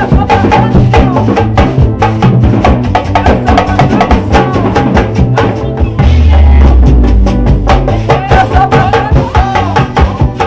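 Band playing a swingueira groove: a dense, driving beat of drums and hand percussion with bass and melodic lines over it. About six seconds in, a long low bass note swells under the rhythm.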